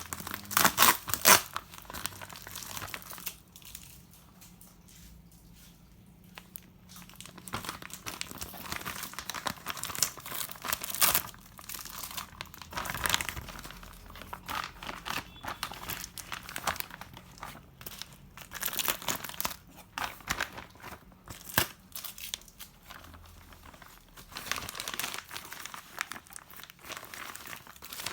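Packaging being crinkled, rustled and torn open during an unboxing, in irregular crackles with a pause of a few seconds near the start.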